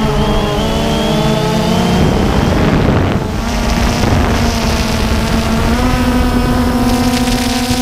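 DJI Phantom 2 quadcopter's electric motors and propellers whining close up, their pitch wavering and gliding as it manoeuvres. A brief rush of noise covers them about two to three seconds in, then the whine settles into a steady hum that steps up slightly in pitch near the end.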